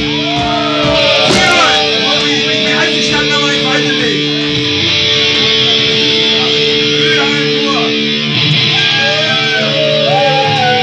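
Live band's electric guitars ringing on long held chords that change twice, with many voices shouting over them.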